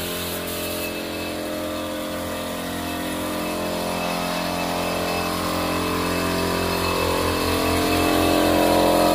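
A motor running steadily with a droning hum, slowly growing louder toward the end, with a faint throb in the low hum near the end.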